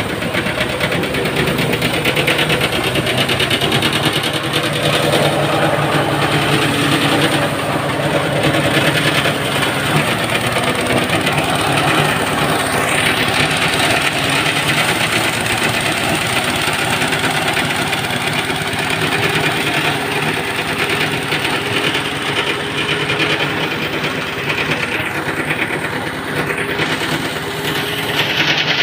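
Engine-driven rice thresher running steadily while rice stalks are fed through it.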